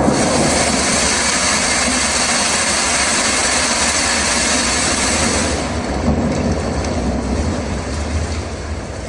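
A steady rushing sound of heavy rain with a low rumble underneath, the sound effect of an augmented-reality storm, thinning and fading out after about five seconds.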